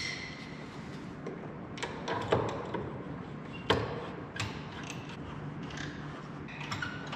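Light knocks and clicks of wooden parts being handled and fitted to a wooden workbench, a handful of separate taps spread through, against a low steady background.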